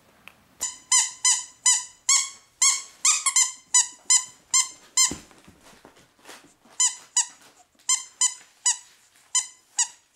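Rapid run of short, high squeaks, all at the same pitch, about three a second, pausing for about a second around five seconds in and then resuming, as ferrets play.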